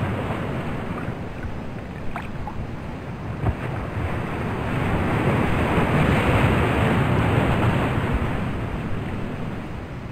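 Ocean surf washing onto a beach, a steady rushing of breaking waves that swells in the middle and eases off near the end.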